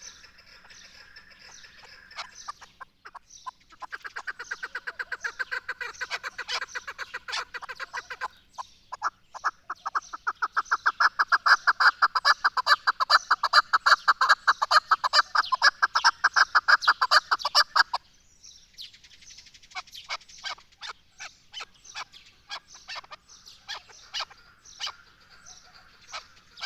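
Chukar partridge calling: a fast run of repeated clucking notes that grows louder over several seconds and breaks off abruptly about two-thirds of the way through, followed by sparser, quieter notes.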